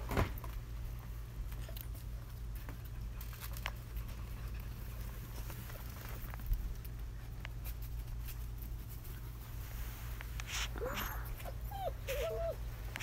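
Six-week-old German Shepherd puppies playing and scuffling over a rope toy, with scattered small clicks and knocks, and a puppy whining a few short times near the end.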